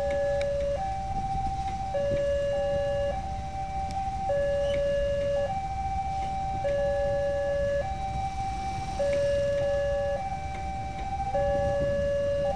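Railway level-crossing warning alarm sounding a two-tone high-low pattern, each tone held about a second before switching, while a passenger train passes with a low rumble underneath.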